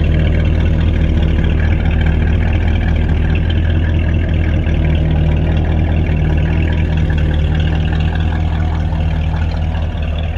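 1967 Chevrolet Impala SS's 327 small-block V8 idling steadily, a deep, even exhaust note heard from under the rear of the car near the muffler.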